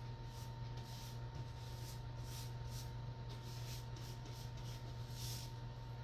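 Soft, repeated swishing strokes of paint being spread on a wall, about two or three a second and irregular, over a steady low hum.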